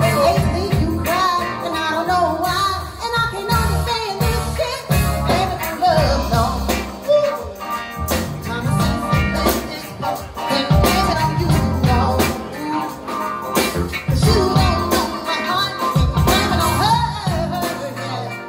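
Live soul band playing through a PA, with keyboards, electric guitar, bass guitar and drums, and a woman singing lead.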